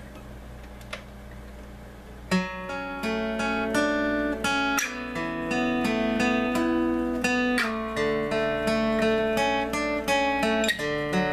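Acoustic guitar starts about two seconds in, playing the opening of a song as a picked chord pattern with the notes ringing on. Before that there is only quiet room tone and a small click.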